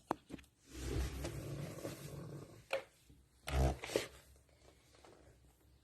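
Dog snoring: a long rough snore starting about a second in, then a shorter, louder snore about three and a half seconds in.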